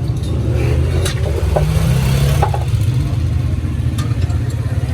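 A large vehicle engine running with a steady low rumble that swells briefly about two seconds in, with a few sharp metallic clicks, one about a second in and one about four seconds in.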